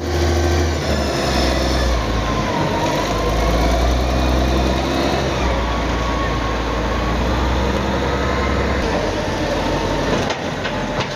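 Wheel loader's diesel engine working under load while scooping and lifting its bucket, a deep steady rumble that eases off about nine seconds in.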